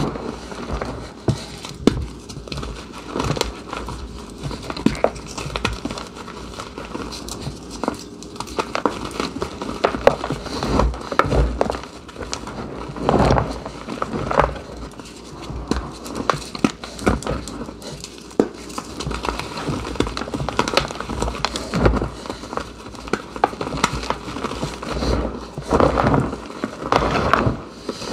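Hands crushing and squeezing reformed gym chalk, powdery chunks crunching and crumbling under the fingers with many small, irregular crackles, in clusters that rise and fall with each press.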